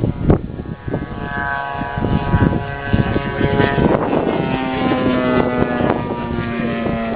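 Radio-controlled model airplane engines running at steady speed, with wind gusting on the microphone near the start. About halfway through, a lower, steady engine tone joins in.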